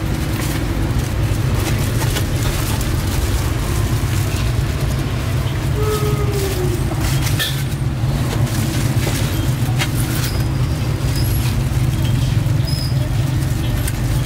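Busy street-market background: a steady low rumble of traffic, with scattered light clicks as foam food boxes are handled, and a brief falling tone about six seconds in.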